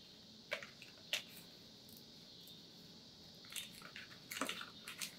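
A small cigar box being opened by hand, faint: two light clicks in the first second or so, then a cluster of soft crinkling and tapping handling noises near the end.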